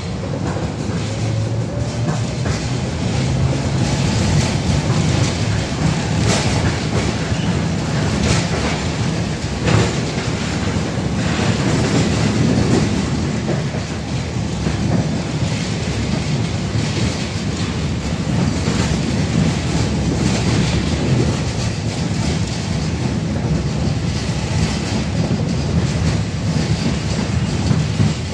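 A 71-605A tram running along the track, heard from inside the passenger car: a steady rumble of wheels and running gear, with a few sharp clacks over the rails, the loudest about ten seconds in.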